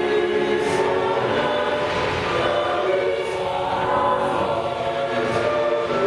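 A choir singing long held chords with musical accompaniment, played over a fireworks show's outdoor sound system.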